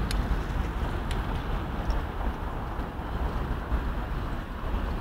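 Outdoor city background noise: wind rumbling on the microphone over a steady hiss of distant traffic, with a few faint clicks.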